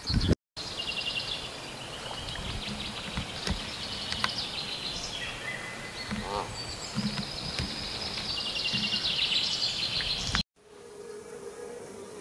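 Small songbirds singing: rapid trills and repeated high chirps overlapping. Near the end the song cuts off abruptly and a steady low buzzing takes over.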